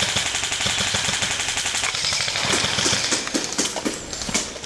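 Airsoft guns firing on full auto: a fast stream of sharp clicks that thins to scattered single clicks about two seconds in.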